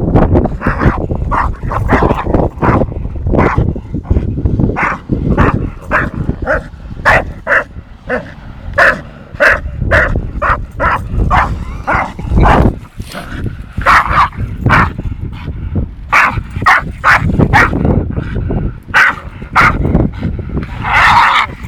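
A Staffordshire bull terrier and an English bulldog growling, with short barks and yips in quick succession, as they play tug-of-war with a toy.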